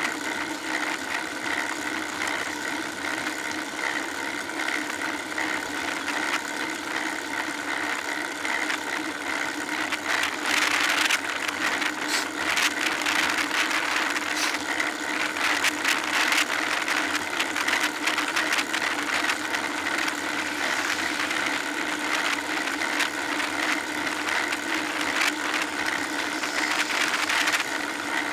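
Riding noise of a road bike picked up by a bike-mounted camera: steady tyre and wind noise with a mechanical rattle and a steady hum, getting somewhat louder from about ten seconds in.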